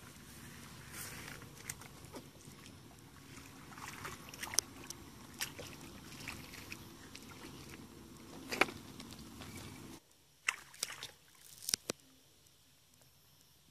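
Steady outdoor background noise with scattered clicks and splashes. About ten seconds in the background drops away, and a few sharp splashes and knocks follow as a stick works in shallow muddy water.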